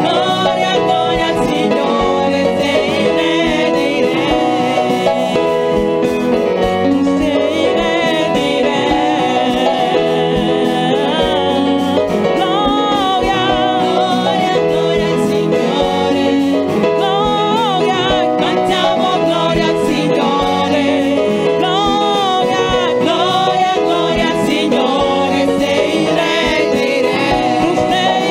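Worship music: a praise song sung over accompanying instruments, continuous and steady in loudness.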